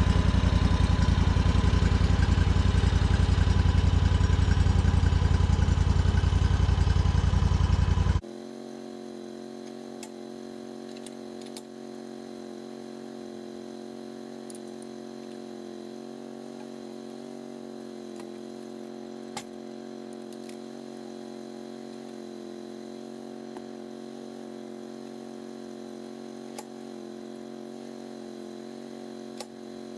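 The homebuilt bandsaw mill's engine running steadily. About eight seconds in it cuts off at once, leaving a quieter steady hum with a few faint clicks.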